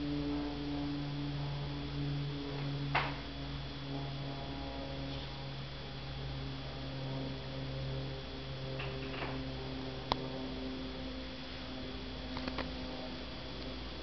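A steady electrical hum made of several low tones, with a few soft clicks and scratches: one scratchy noise about three seconds in, a sharp click about ten seconds in, and a couple of light ticks near the end.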